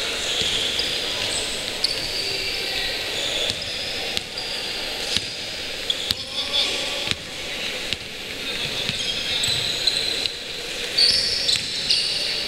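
Basketball game on an indoor court: sneakers squeaking in short high chirps on the floor, the ball bouncing, and players' voices in the background.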